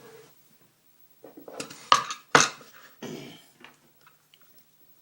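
Metal clicks and clatter from handling a Kwikset lock cylinder and small tools while working its retaining clip off: two sharp clicks about two seconds in, a brief rattle a second later, then a few faint ticks.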